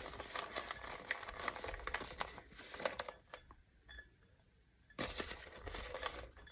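Raisins shaken out of a cardboard canister into a glass bowl: a dense run of small taps and rustles that breaks off about three seconds in and starts again for about a second near the end.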